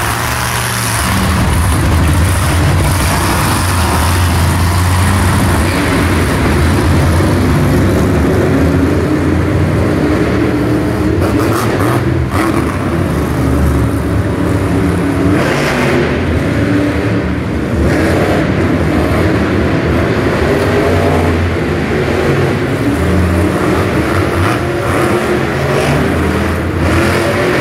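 Several monster trucks' supercharged V8 engines running together as the trucks circle the arena floor: a loud, continuous rumble whose pitch rises and falls as the drivers blip the throttle.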